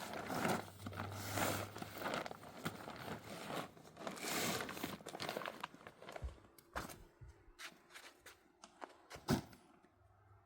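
Rustling and crunching handling noises for about six seconds, then fainter with a few scattered sharp knocks and clicks.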